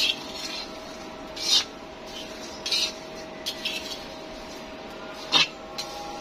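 Short rasping scrapes of a utensil against a hard surface, about five of them at irregular intervals, the loudest near the end, over a steady faint hum.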